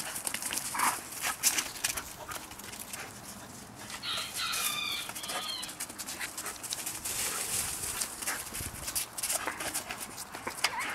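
Two Giant Schnauzers at play: many short scuffs and clicks of paws on concrete, and one brief high, wavering whine about four seconds in.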